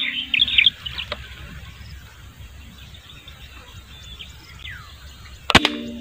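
Small birds chirping in quick high calls, loudest in the first second, then scattered falling calls over low outdoor ambience. A single sharp crack about five and a half seconds in, with background music coming back right after it.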